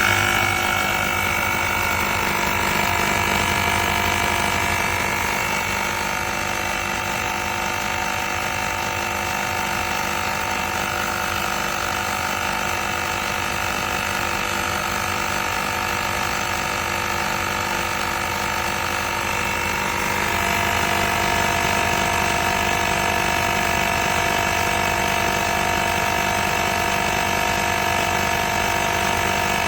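AIRSURE portable tire inflator's small electric piston compressor running steadily, a loud mechanical drone with a rattly, pump-like beat. About twenty seconds in its pitch steps up a little and it gets slightly louder.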